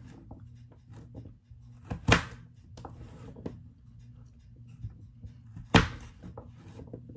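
Light knocks and clicks of things being handled on a kitchen counter, with two sharper knocks about two seconds in and again near six seconds. A low steady hum runs underneath.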